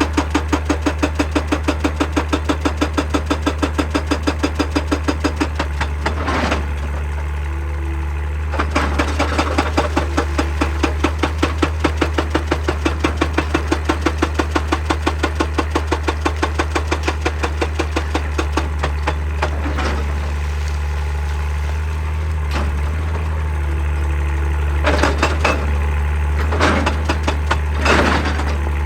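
Excavator-mounted hydraulic breaker hammering rock in a fast, even rhythm of about four to five blows a second over the steady drone of the excavator's diesel engine. The hammering pauses briefly about six seconds in, resumes, and stops again about two-thirds of the way through. After that the engine runs on with a few single loud knocks near the end.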